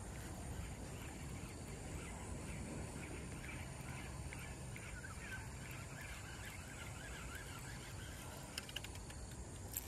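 Outdoor ambience: a steady low rumble with faint bird chirps in the middle and a few light clicks near the end.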